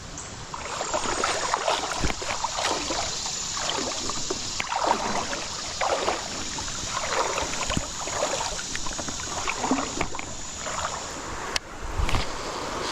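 Creek water sloshing and swishing in repeated strokes about once a second as legs push through high water, over the steady rush of the flowing creek. A short low thump comes near the end.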